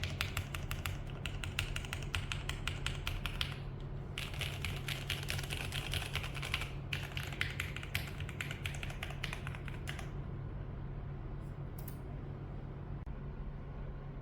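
Typing on a mechanical keyboard: fast, dense keystroke clicks with a couple of short pauses, stopping about ten seconds in. A steady low hum runs underneath.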